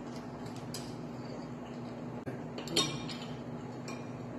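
Metal tongs clinking a few times against a small plate and a serving pan, the loudest clink a little under three seconds in, over a steady low hum.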